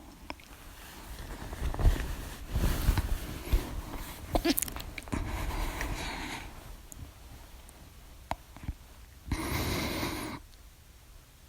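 A woman's hiccups: heavy, wheezy breathing with a short sharp hiccup about four and a half seconds in, then one long breath out near the end.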